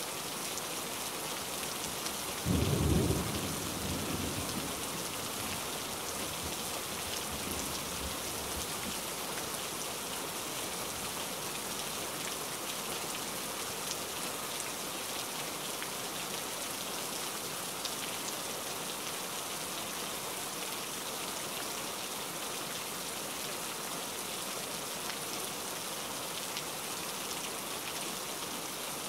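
Steady rain falling. About two and a half seconds in, a sudden low rumble rises over it and fades away over the next few seconds.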